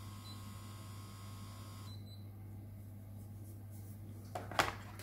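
InFace blackhead vacuum's small suction motor running with a steady whine, a short beep from its touch button as it changes suction level, then another beep about two seconds in as it is switched off and the whine cuts off. Near the end a few sharp clicks of the device being handled.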